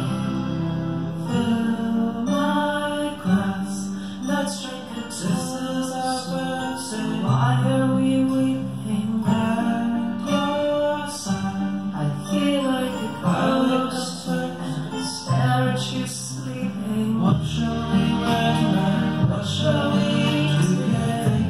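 Music with singing over long held low notes.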